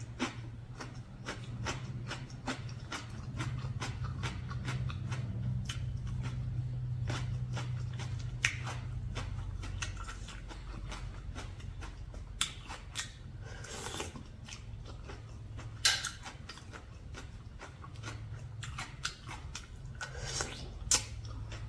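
Close-up eating sounds: chewing and biting with many small wet clicks and crunches from a seafood papaya salad. A steady low hum runs underneath.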